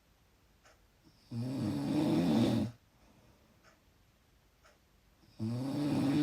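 Loud snoring: two snores about four seconds apart, each lasting about a second and a half, the second still going at the end.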